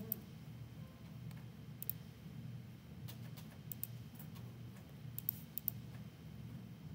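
Quiet room tone: a low steady hum with about a dozen light, sharp clicks scattered irregularly through it.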